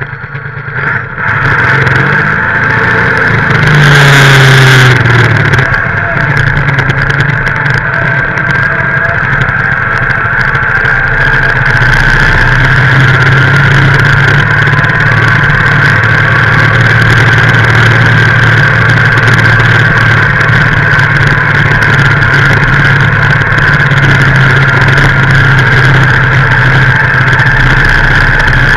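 Leyland tractor's diesel engine working hard under full load in a tractor pull, heard right beside its open vertical exhaust stack. The engine note climbs over the first two seconds, is briefly louder around four seconds in, then holds steady.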